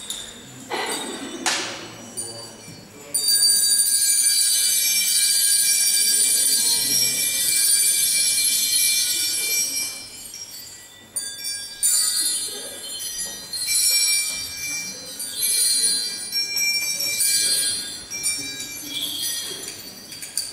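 Bells ringing, shaken in one long continuous run of about seven seconds, then in several shorter bursts.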